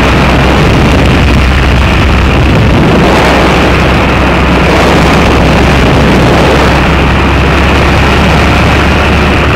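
Loud, steady drone of a two-seat ultralight trike's engine at climb power, mixed with heavy wind rushing over the microphone in flight.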